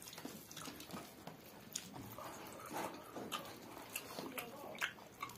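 Close-miked eating sounds: chewing and wet lip smacks with scattered soft clicks, and fingers working through rice on plates.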